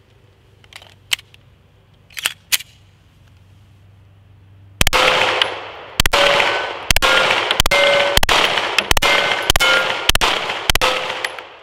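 A few handling clicks, then a 9mm Sig Sauer P320 X5 pistol fired about nine times in a steady string, roughly one shot every two-thirds of a second, starting about five seconds in. Several shots are followed by a short ring as steel plate targets are hit.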